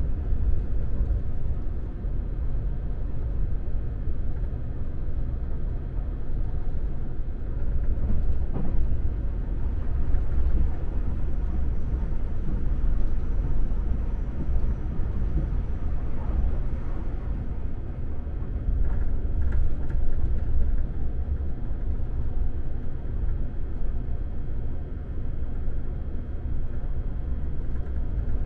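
JR Shikoku 8000 series electric limited express train running along the line: a steady low rumble of the moving train.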